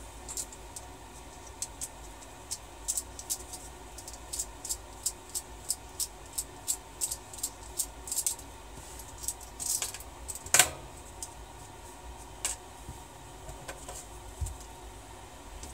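Precision screwdriver turning small screws in a mini quadcopter's carbon-fibre frame: a run of light clicks about three a second, then a few scattered clicks with one louder knock a little past halfway.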